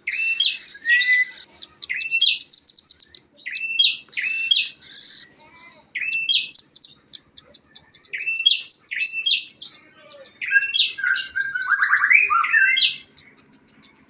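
Juvenile velvet-fronted nuthatch calling busily: quick runs of high, sharp chips and short downslurred notes, broken by brief loud rattling trills at the start, about four seconds in and again late on. This is the rapid-fire 'nembak' calling that keepers prize, already given freely by a young bird.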